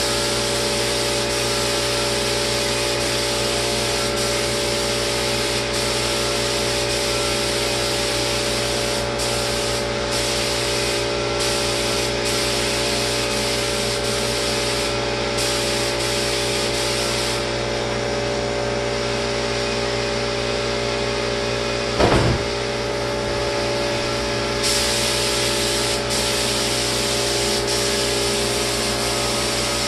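Lacquer spray gun hissing over the steady hum of the sprayer's motor. The hiss cuts out briefly several times and eases off for several seconds past the middle as the trigger is let go. One short thump comes a little after the middle.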